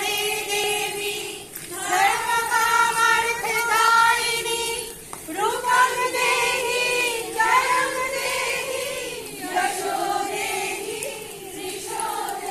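A group of women and girls singing a devotional song together in unison, in phrases a few seconds long with short breaks between them.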